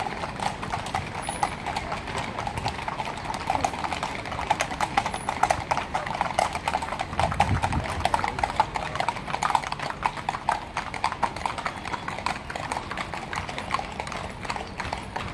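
Hooves of carriage horses clip-clopping on an asphalt street, many overlapping hoofbeats as a line of horse-drawn carriages passes.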